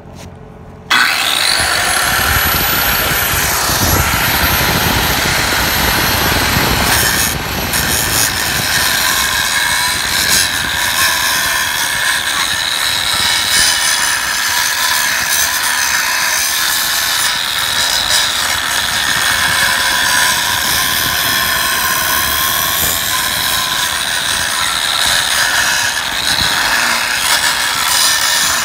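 Angle grinder starting about a second in, a high whine rising as the disc spins up, then cutting steadily into a rusty steel H-beam.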